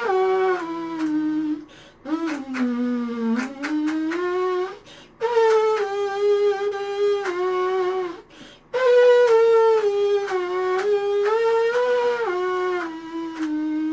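A 3D-printed plastic rectangular trumpet played as a melody: held, brassy notes in short phrases with brief breaths between them. About two seconds in, a lower note sags in pitch and climbs back up.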